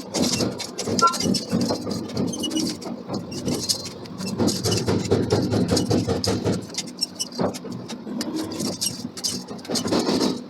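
Machinery running with many irregular knocks and clanks.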